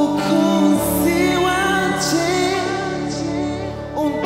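Live gospel worship song: several voices, a woman's lead among them, singing a slow melody over a band of keyboard, bass guitar and drums. The low bass notes change about a second in and again near the end.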